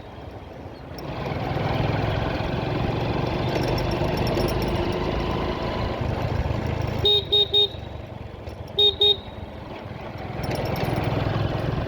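Vehicle horn tooting three quick times about seven seconds in, then twice more a second and a half later, over the steady engine and road noise of a ride through traffic.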